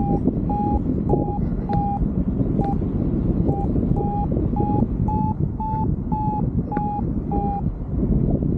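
A paragliding variometer beeping its climb tone: short, even beeps about twice a second that rise a little in pitch, then ease back and stop near the end, the sign of the glider rising in lift. Heavy wind rush on the microphone runs underneath.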